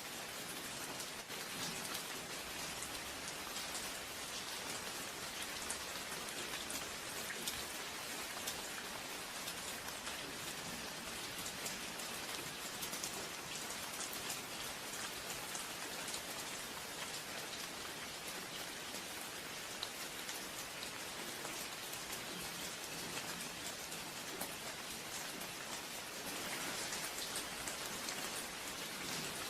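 Steady rain, a dense hiss of drops, becoming a little heavier near the end.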